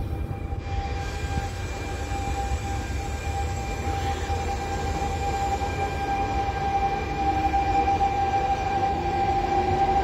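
Trenord regional train pushed by an E.464 electric locomotive rolling slowly past, with a low rumble of wheels on rail. Over it is a steady high electric whine from the locomotive, which grows louder as the locomotive draws level.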